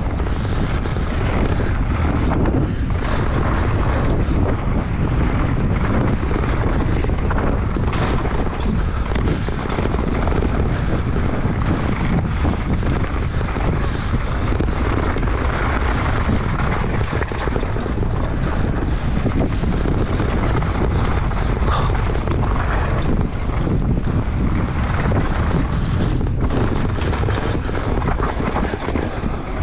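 Mountain bike descending a dirt flow trail at speed: wind buffeting the microphone over steady tyre rumble, with many short knocks and rattles from the bike over rough ground.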